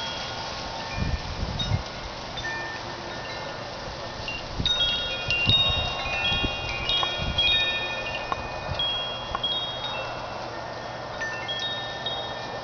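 Wind chimes ringing, many overlapping struck notes that fade out, thickest in the middle. Gusts of wind buffet the microphone at times.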